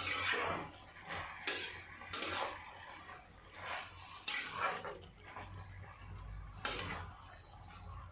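Metal spatula stirring and scraping bathua greens and potato pieces around a metal kadhai: irregular scrapes with a few sharper clinks of the spatula against the pan.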